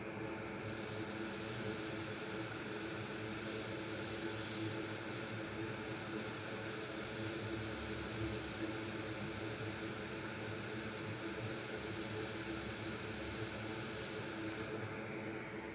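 Hot air rework station blowing steadily on the backlight LED driver chip of a MacBook Air logic board to melt its solder and lift it off, a rushing hiss that fades away near the end.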